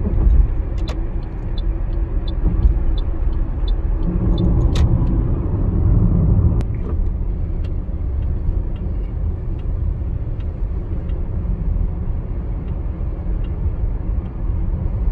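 Car road noise heard from inside a moving car: a steady low rumble of engine and tyres, swelling slightly a few seconds in, with a faint regular ticking about twice a second.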